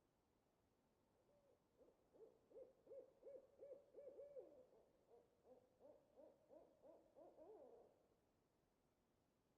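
Owl hooting: a fast series of short, faint hoots, about three a second, starting about a second and a half in and stopping after roughly six seconds.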